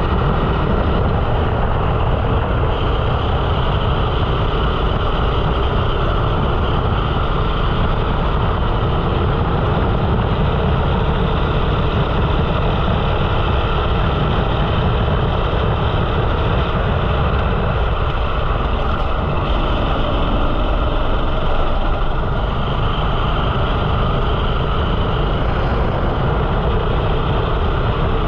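13 hp rental kart's engine running steadily on track, heard close up from the kart.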